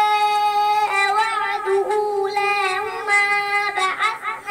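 A child's high voice reciting the Quran in melodic tajweed chant. It opens on one long held note, then moves into ornamented phrases that turn up and down in pitch.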